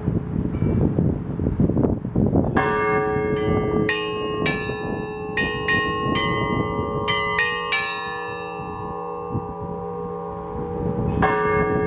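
Orthodox church bells rung by hand. Wind gusts rumble over the microphone while a bell tone rings on. About two and a half seconds in a bell is struck, then a quick run of strikes on smaller, higher bells follows and rings away, and another bell is struck near the end.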